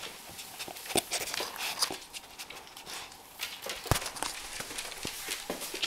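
Weimaraner puppy's claws clicking and tapping on a hardwood floor as it moves about, with a sharper knock about four seconds in.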